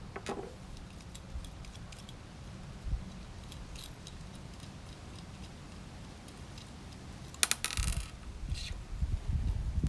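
Small metallic clicks and clinks from handling the gauge and its small metal parts, with one louder rattling clatter about three quarters of the way through, over a low rumble of wind on the microphone.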